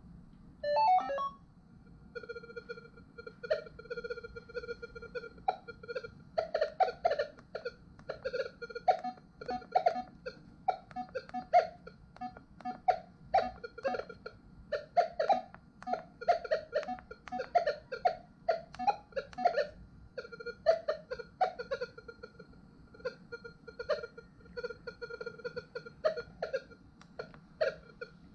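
Minelab Equinox 800 metal detector sounding erratically: an irregular stream of short, low, warbling chirps over a steady high tone, with sharp button beeps and a short rising tone about a second in. This is the detector malfunctioning, chattering with no target while its buttons beep but do nothing.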